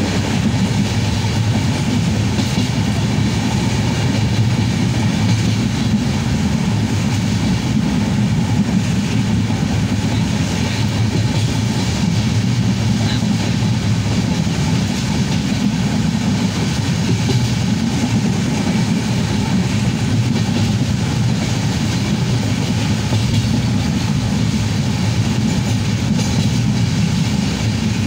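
Passenger train running along the track, heard from inside the carriage: a steady low rumble of wheels and carriage.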